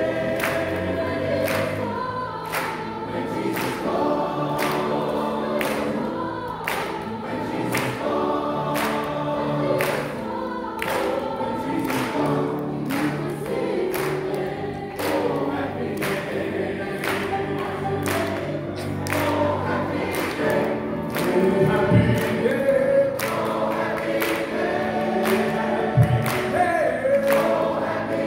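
Church choir and a male soloist singing an upbeat gospel song, with the congregation clapping steadily on the beat.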